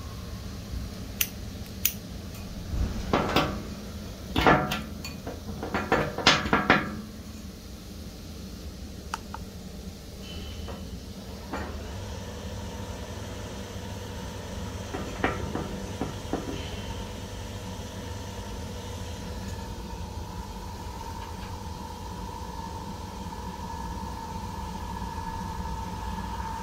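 Sharp metal clicks and clinks as the tester's knurled coupling is fitted onto a metal test dolly, then the DeFelsko automatic pull-off adhesion tester's pump running with a steady whine, which rises slightly near the end as pressure builds on the dolly.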